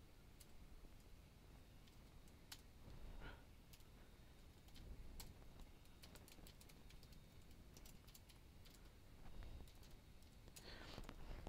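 Faint typing on a computer keyboard: irregular, scattered keystrokes as code is entered.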